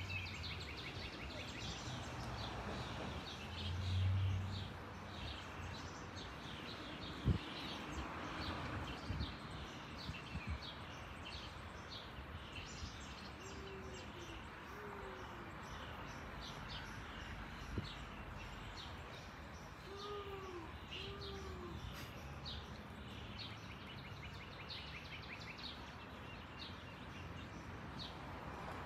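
Small birds chirping over and over against a steady outdoor background hiss. Twice, about 14 and 20 seconds in, comes a pair of short, low, arching calls, and there is a single sharp knock about 7 seconds in.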